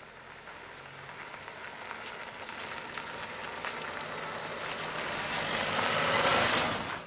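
A car driving along an off-road trail, its engine and tyre noise growing steadily louder as it approaches, then cutting off abruptly near the end.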